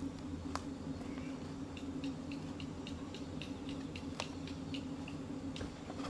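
Outdoor ambience with a steady low hum, a run of short high chirps repeating a few times a second from about two seconds in, and a couple of light knocks as a wicker picnic basket and a wooden board are set down on a table.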